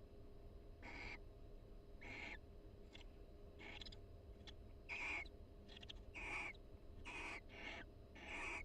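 Barn owls giving about ten short, soft, hissy calls, roughly one a second and coming closer together near the end, over a steady low hum. The calls are pair-bonding chatter between mates in the nest box.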